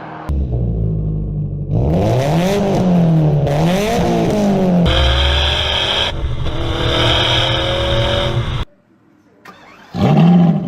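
High-performance sports-car engines and exhausts in quick succession. First a deep low idle, then revs that rise and fall twice, then a long climb in pitch under hard acceleration. After a brief lull, a sharp rev blip comes near the end.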